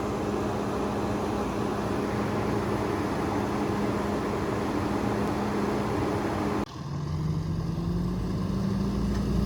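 An engine running steadily with a constant hum. About two-thirds of the way through the sound changes abruptly, and an engine's hum then rises slowly in pitch.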